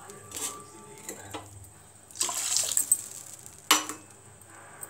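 Onion, chilli and curry-leaf tempering bubbling in a steel kadai on the stove, with a louder noisy burst a little past two seconds in and a sharp clink just before four seconds.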